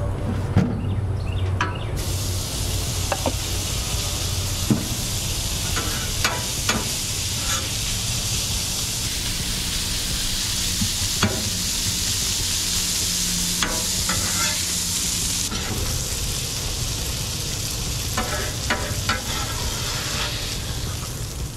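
Corn kernels sizzling in oil on a hot Blackstone flat-top griddle, the sizzle starting abruptly about two seconds in. A steel spatula scrapes and taps on the griddle now and then as it stirs the corn, over a low steady hum.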